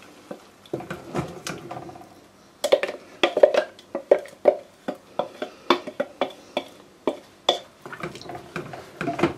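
A spoon scraping and knocking against a steel grinder jar and a steel pot as thick blended onion-tomato paste is scraped out and stirred in. The scraping is soft at first; about two and a half seconds in, sharp irregular clicks and knocks begin, several a second.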